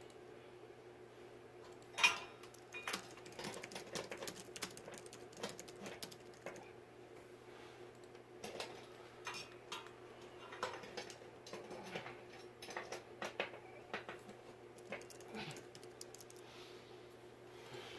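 Scattered light clicks and small metallic clinks from ceiling fan hardware being handled and fitted during installation, the sharpest about two seconds in, over a faint steady hum.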